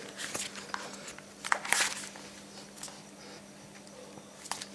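Light handling noises: a few clicks and short rustling scrapes, the loudest about a second and a half in, as the aluminium iPhone 6 body is set down on paper and booklet spacers and pressed down with a palm to bend the frame straight.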